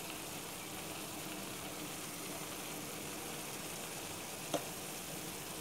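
Mixed vegetables sizzling in oyster sauce and a little water in a frying pan, a steady hiss as they cook down until soft. A metal fork clicks against the pan once, about four and a half seconds in.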